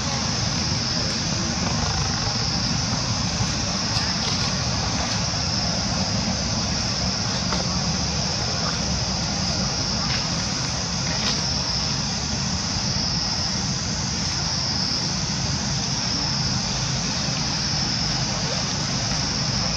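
Steady outdoor background noise: a constant high-pitched hiss over a low rumble, with a few faint clicks.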